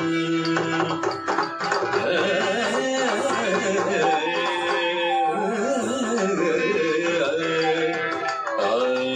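Carnatic music for a Bharatanatyam dance: a melody with gliding, wavering notes over a busy hand-drum pattern.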